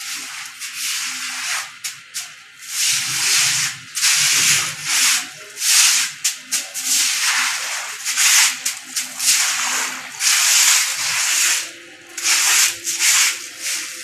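Short stick broom scrubbing a wet concrete floor while water from a hose runs onto it. The strokes come one after another, irregularly, roughly one a second.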